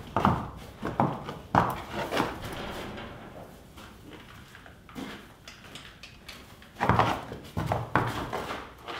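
Horse's hooves thudding on a dirt-and-shavings barn aisle floor as it walks, in two runs of footfalls about half a second apart with a quieter pause between.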